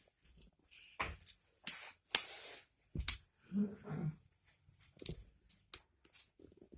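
Magnetic building blocks clicking and knocking together as they are handled and joined, in a string of separate sharp clicks.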